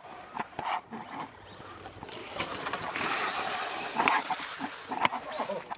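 Battery-powered RC car driving over rough ground: a rush of tyre and motor noise builds from about two seconds in and holds until near the end, with a few sharp knocks as it bounces.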